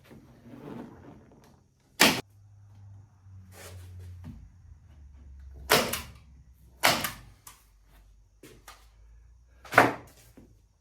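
Pneumatic staple gun firing staples into wood, a series of sharp shots at uneven intervals, four of them loud.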